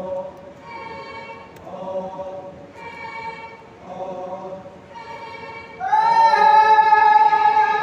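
A group of voices singing a Lotha Naga folk song without instruments, in short phrases about once a second that alternate between a lower and a higher pitch. About six seconds in they swell into one loud, held note.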